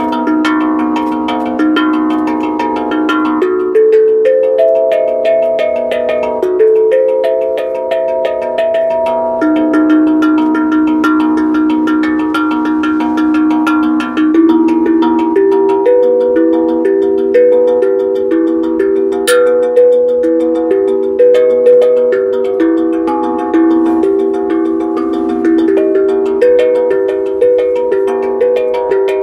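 A melody played on struck, ringing percussion. Notes are hit about once or twice a second, and each rings on over the next so the tones overlap, stepping up and down in pitch.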